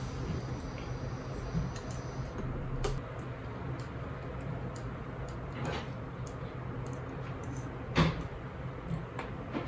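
Scattered light clicks and knocks over a steady low hum, the sharpest knock about eight seconds in.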